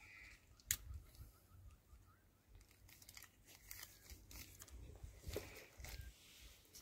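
Faint scraping and tearing of bark as a scion is pressed into the slit of a thick apple branch stub with a pocket knife, with a sharp click just under a second in and light crackling handling noises later.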